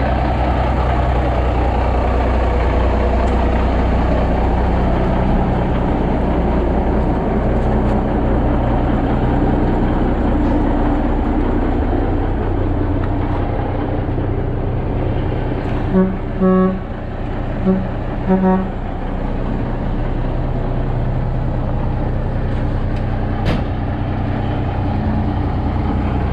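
Pickup plow truck's engine running steadily while driving. Four short horn toots come about two-thirds of the way in.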